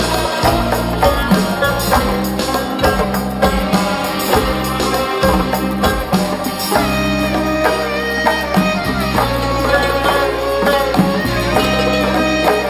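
Uzbek folk ensemble playing a tanovar instrumentally: a melody over steady low bass notes and regular jingling drum strokes.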